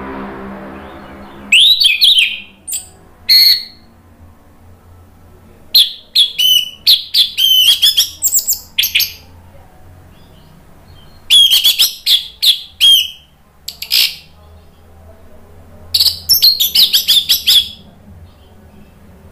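Orange-headed thrush (anis merah) singing loud full song in four bursts of rapid, high warbled phrases, with pauses of a couple of seconds between them. A low hum fades out in the first second and a half.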